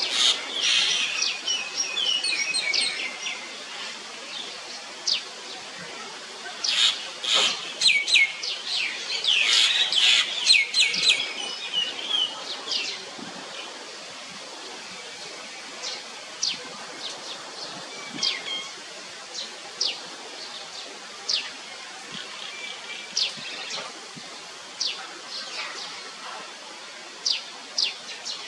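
Small birds chirping: dense runs of quick, high chirps in the first few seconds and again around the middle, then single short chirps every second or so over a steady background hiss.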